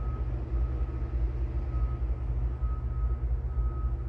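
The JCB 505 telehandler's four-cylinder Kohler diesel engine idling steadily, with a faint high whine that comes and goes.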